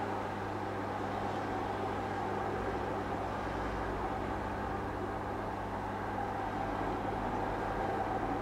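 Reef aquarium equipment running: a steady low hum with water-circulation hiss from the tank's pumps.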